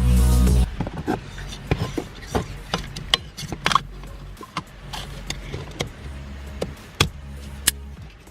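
Electronic music that cuts off abruptly under a second in, then scattered irregular clicks and knocks of hand tools and parts being handled, over a low steady hum.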